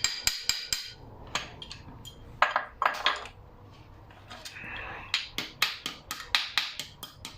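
Quick light metal taps, about four or five a second, in two runs with a few louder knocks in between: the Bar-Tek short shifter for a 6-speed 02M gearbox being tapped into its seat.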